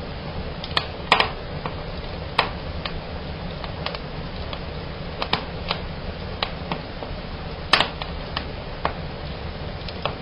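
Fire burning in a fireplace, cracking and snapping: irregular sharp snaps and pops over a steady rush of the burning. The loudest snaps come about a second in and again about three-quarters of the way through.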